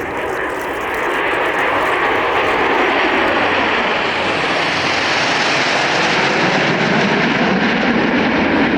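CT-114 Tutor jet trainers of the Snowbirds flying past with a loud, steady jet roar. It swells about a second in and holds, and its high hiss fades toward the end.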